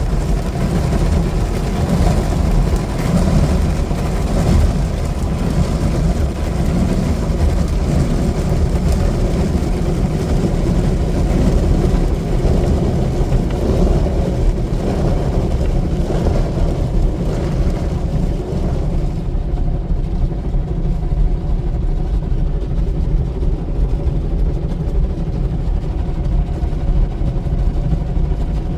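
Broadway in-bay car polisher's spinning buffer brushes working over the car, a loud steady rumble and whir heard from inside the car's cabin. The higher hiss fades about two-thirds of the way through.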